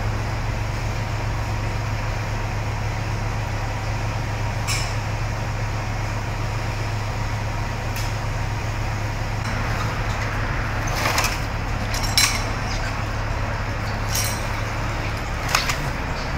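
Water-removal equipment running with a steady low drone, with a few sharp knocks and clatters scattered through it, most of them in the second half.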